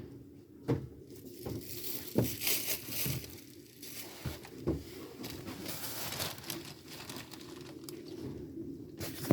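Loud rustling and crinkling handling noise while laundry is hung out, broken by several sharp knocks, the loudest right at the end. About three and a half seconds in there is a faint throat-clear, which the uploader takes for a passer-by's.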